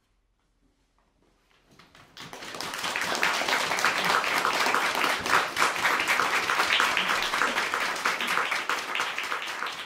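About two seconds of near silence, then audience applause that swells quickly and continues steadily.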